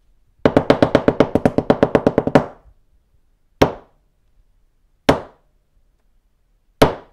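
The French theatre's 'trois coups': a wooden staff knocking on stage boards in a fast roll for about two seconds, then three slow separate knocks about a second and a half apart. It signals that the curtain is about to rise.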